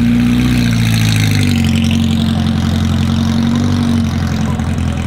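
Porsche 356B Carrera Abarth GTL's four-cam flat-four engine running at low revs as the car pulls slowly away, a steady low note that drops a little in pitch about one and a half seconds in.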